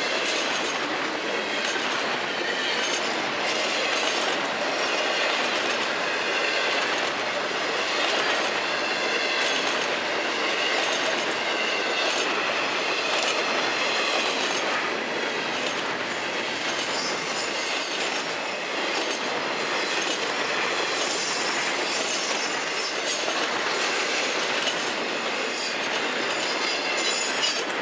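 Freight cars of a Florida East Coast Railway intermodal train rolling steadily past: wheels clatter over rail joints, and flanges squeal in wavering high tones. A short, sharper squeal comes about 18 seconds in.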